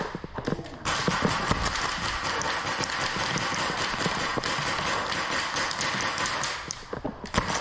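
Airsoft game noise: a dense clatter of many quick clicks and impacts over a steady rushing noise.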